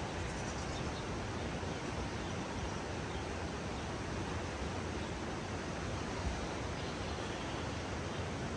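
Steady outdoor rushing noise, even throughout with no distinct events.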